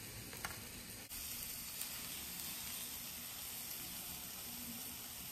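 Faint, steady high-pitched hiss, with a light click about half a second in.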